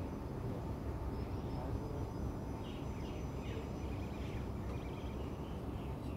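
Steady low rumble of industrial plant machinery with a faint steady hum, and a few faint bird chirps about halfway through.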